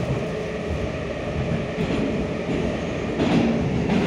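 81-725.1 'Baltiets' metro train running between stations, heard from inside the car: a continuous rumble of wheels on rail with a steady underlying hum. The rumble gets briefly louder about three seconds in.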